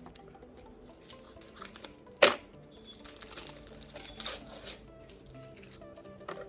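Gift wrapping paper being torn and rustled by hand as a small wrapped present is opened, with a sharp rip about two seconds in and a run of smaller crinkles and tears a second later. Faint background music plays underneath.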